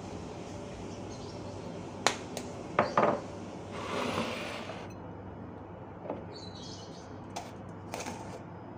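Kitchen bowls, jars and containers being set down and handled on a countertop. A few sharp clinks come about two to three seconds in, then a short scraping sound around four seconds, then lighter taps near the end.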